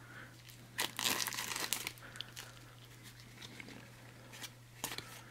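Plastic shrink-wrap being torn and crinkled off a deck of cards. It is loudest in a burst about a second in, followed by softer scattered crackles and another short burst near the end.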